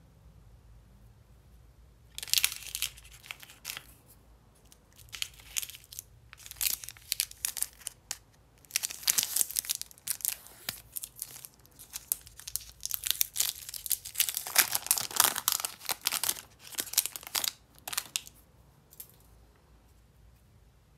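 A crinkly candy-bar wrapper being torn open and peeled off the chocolate by hand, in irregular bursts of crackling from about two seconds in until near the end.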